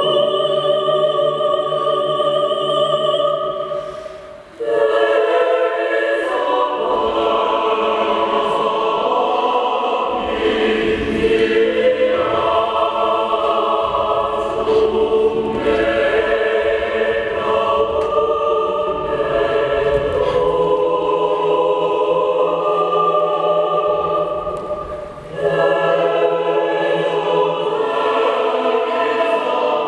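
Choir singing slow, long-held chords, with two brief breaks between phrases, about four seconds in and again about twenty-five seconds in.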